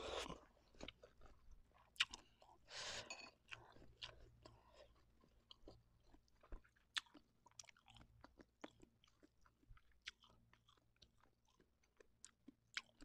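A person slurping and chewing Indomie instant noodles close to the microphone: a slurp at the start and another about three seconds in, then many small wet clicks of chewing.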